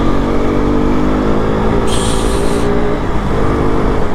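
KTM RC sport bike's single-cylinder engine accelerating hard as the bike picks up speed, its note breaking off twice. A short hiss about two seconds in.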